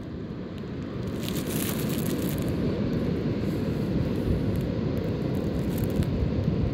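Wind rumbling on the phone's microphone over the steady rush of surf breaking on the distant reef, with a brief hissy gust a second or so in.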